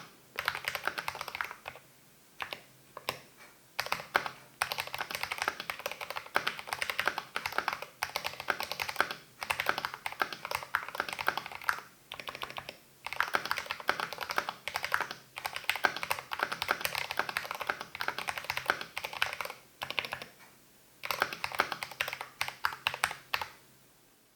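Typing on a GMMK Pro mechanical keyboard with lubed Cherry MX Speed Silver linear switches and MT3 Skiidata keycaps: fast runs of key clacks, broken every few seconds by short pauses.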